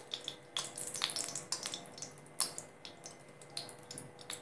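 Steel spoon scraping and tapping a lump of ghee into a frying pan, with sharp, irregular clicks and crackles throughout.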